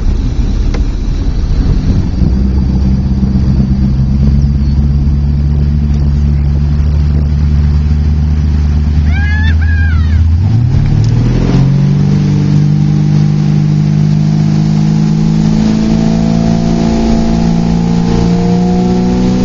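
Tow boat's inboard engine running hard as it pulls two barefoot water skiers up from a dock start; its low, steady drone climbs in pitch about ten seconds in and holds higher, over rushing wind and water.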